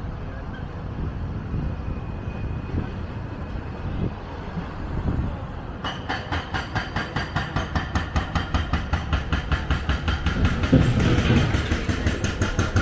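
Low city traffic rumble. About halfway in, a rapid, even ticking starts, about five ticks a second, and grows louder.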